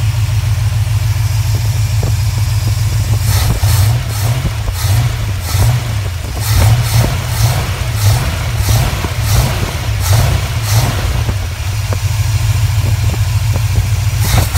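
1972 Ford F100's V8 idling on a Holley two-barrel carburettor. It runs with a steady low rumble and a slightly uneven beat, and from a few seconds in there are irregular sharp ticks or crackles about once or twice a second.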